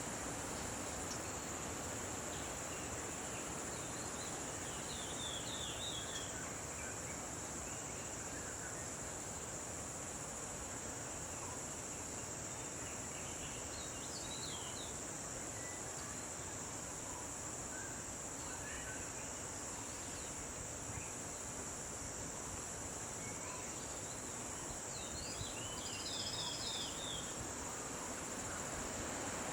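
Steady high-pitched drone of insects, with a few faint bird chirps now and then.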